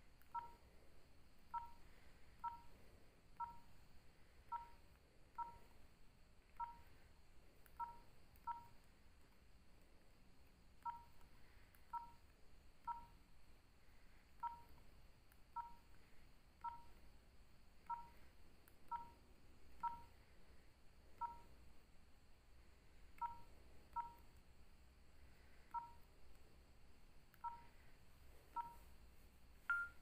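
Nokia 3806 key-press tones: short, separate beeps, one per key press as the menu is scrolled, at an uneven pace and sometimes two in quick succession. The loudest beep, slightly higher, comes near the end.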